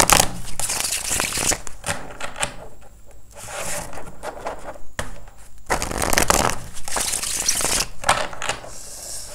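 A deck of tarot cards being shuffled by hand: quick papery flicks and rustles in spells, with short lulls between them.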